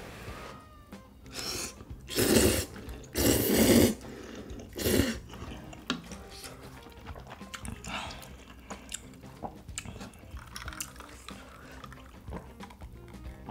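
Loud slurping of ramen noodles, three long slurps close together a couple of seconds in, followed by quieter chewing with small wet smacks and clicks.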